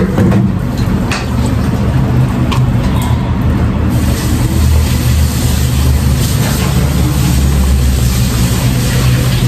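A loud, steady, low mechanical hum with a hiss over it, with a few light clicks in the first three seconds.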